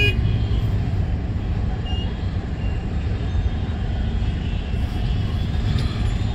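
Steady low rumble of road traffic, with a few faint, short high tones over it.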